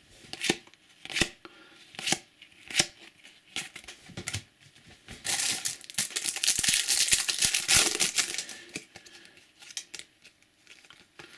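A few sharp flicks and snaps of trading cards being handled, then a foil Topps Match Attax booster pack torn open with a crinkling rip lasting about three seconds, starting about five seconds in.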